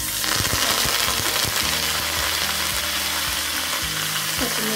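Curry leaves and coriander dropped into hot oil for a tempering in a small aluminium kadai: a loud sizzle that starts suddenly and then spits steadily.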